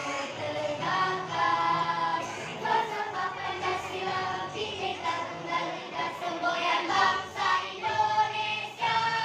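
Choir singing a song in parts over a steady low accompaniment, with a new held chord starting near the end.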